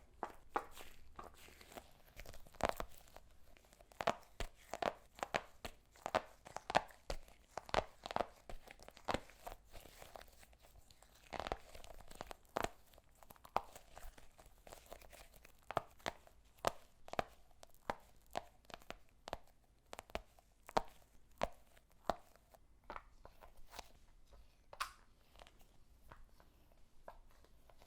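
Sticky slime ball being squeezed and pulled close to the microphone: irregular short sticky pops and tearing crackles, a few a second, growing sparser near the end.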